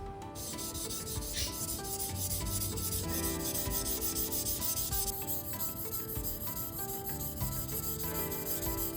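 Yanagiba blade of White Steel No.2 being stroked on a Nakayama natural whetstone: a steady, gritty scraping hiss that begins just after the start and stops at the end.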